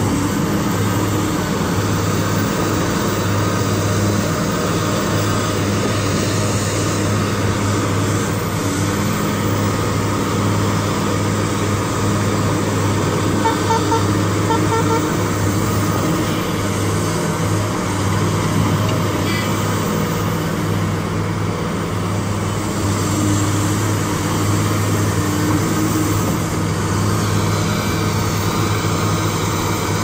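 Large diesel engine of a Cat 390F hydraulic excavator running steadily as a constant low drone while the machine digs and loads.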